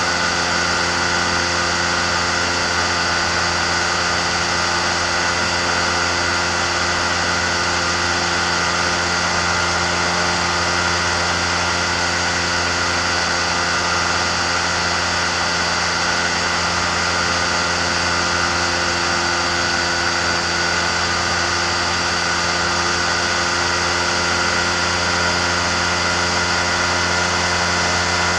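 Amphibious flex-wing microlight trike's pusher engine and propeller running steadily at a constant cruise setting in flight, a loud, even drone that does not change.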